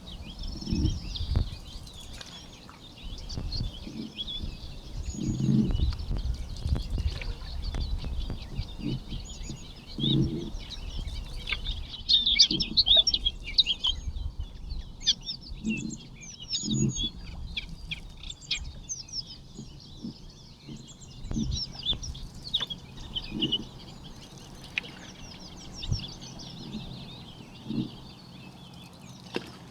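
Birdsong from many small birds, a steady chorus of quick chirps and trills, busiest about halfway through. Dull low thumps come every few seconds underneath.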